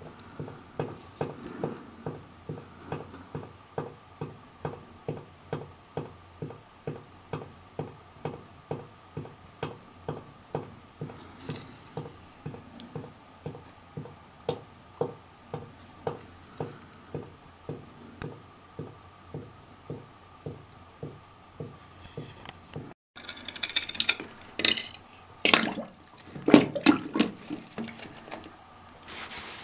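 Water dripping steadily into a pool of seeping groundwater in a basement pit, about two drops a second. About three-quarters of the way in this gives way to a few louder, irregular knocks.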